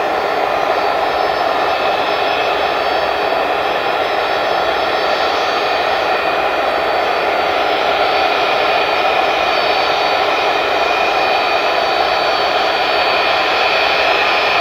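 A Boeing 757-200 freighter's twin Rolls-Royce RB211 turbofans run at low taxi power as the jet rolls along. The engine noise is steady with a high whine, and grows a little louder about halfway through.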